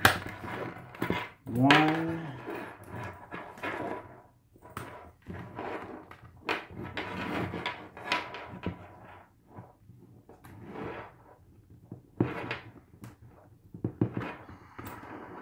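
Hands pressing a chin strap's snaps onto a football helmet's plastic shell: irregular clicks, knocks and plastic rubbing, the new snaps stiff to seat. About two seconds in, the loudest sound is a short one with a pitch that rises and then falls.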